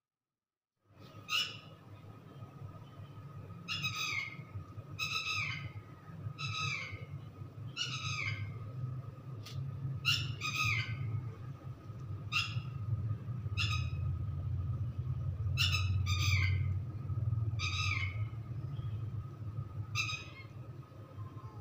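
Bird calls: a string of short, falling squawks roughly once a second over a steady low hum, starting about a second in.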